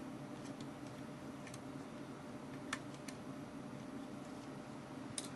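Quiet room tone with a few faint small clicks and ticks from fingers handling the opened compact camera's circuit board and flex cables.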